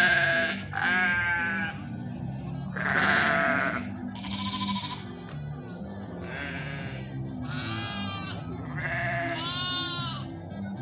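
Dorper sheep and lambs bleating over and over, several different voices, about eight cries with short gaps between them. Music with a steady bass line plays underneath.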